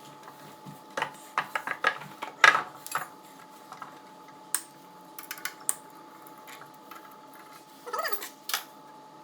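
Irregular clicks and light metallic knocks of hand tools and parts being worked on a Honda CG125 motorcycle engine. They come in clusters: a busy run in the first few seconds, scattered taps in the middle and a couple more near the end, over a faint steady hum.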